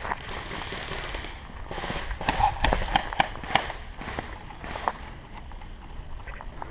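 Footsteps and rustling of a player moving on outdoor ground, with a quick cluster of about five sharp cracks a little over two seconds in, such as airsoft gas-gun shots or hard steps.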